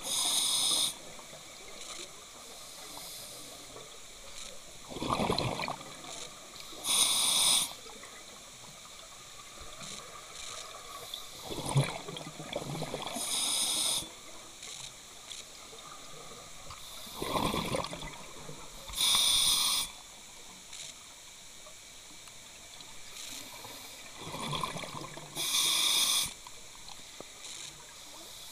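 A scuba diver breathing through a regulator, heard underwater: five breaths about six seconds apart, each a short sharp hiss of air drawn through the regulator with a burst of rumbling, gurgling exhaled bubbles between them.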